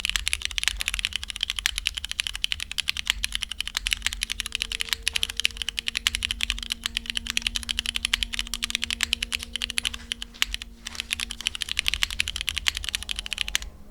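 Mode Tempo mechanical keyboard with linear Cherry MX2A Black switches in a PC plate and GMK keycaps, typed on quickly and continuously on a tempered glass desk pad, a dense run of key clacks that stops just before the end.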